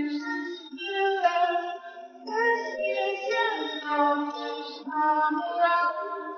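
High female voices singing a slow, flowing melody with music, in an old 1930s film recording that sounds thin, with no bass.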